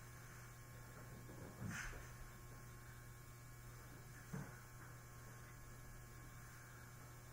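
Near silence with a steady low electrical hum and two faint soft knocks, one a little under two seconds in and one past four seconds.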